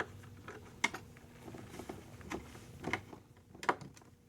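Scattered small clicks and taps of hands working small metal CPU-cooler mounting hardware, a screw-in standoff and its parts: a few sharp ticks, the loudest about a second in and near the end.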